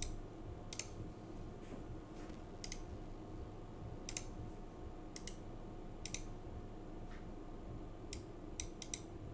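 Scattered single clicks of a computer mouse, irregular and a second or so apart, with a few quick ones near the end, over a faint steady hum.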